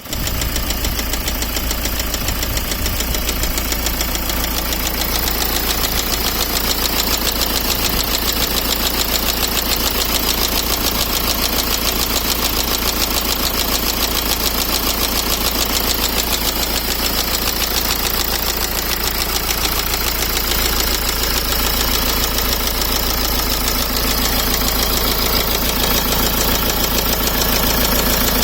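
BMW E60 520d's four-cylinder diesel engine running at a steady idle with a fast, even knock throughout, which the owner takes for engine knocking.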